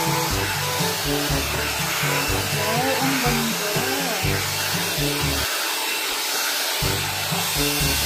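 Electric hot-air hair styler running with a steady, noisy blowing hiss while it is drawn through long hair, under background music.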